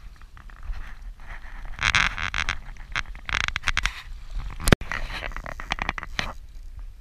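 Rough rustling and scraping noise on the camera microphone over a low rumble, then a run of quick clicks as a spinning reel is cranked.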